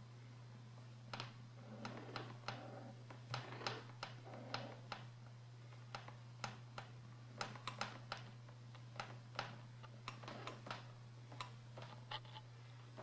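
Irregular sharp clicks and soft rustles as a hand strokes and pats a cat's fur on a hard desk, over a steady low hum.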